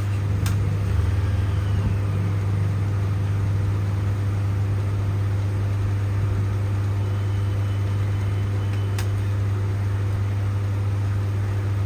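Hero Honda Splendor NXG's single-cylinder four-stroke engine idling steadily and evenly. The new timing chain has just been tightened by its tensioner, and the engine runs smoothly without the chain knock.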